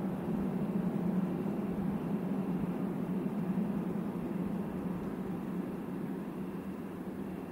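Low, steady rumble of a distant freight train, slowly fading away.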